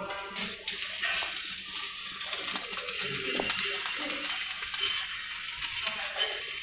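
Stick (SMAW) welding arc burning as an electrode is run on an overhead plate: a steady crackling hiss. The arc catches with a few sharp clicks about half a second in.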